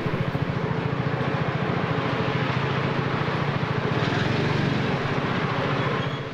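Small motorbike engine running at low speed with a steady, even pulse as the bike is ridden slowly. The engine is switched off about six seconds in.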